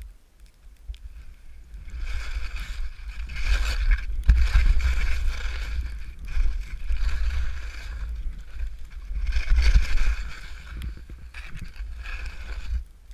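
Skis swishing and sliding through fresh powder snow in long surges, with wind rumbling on the camera's microphone. It starts about two seconds in, swells twice, and stops sharply near the end.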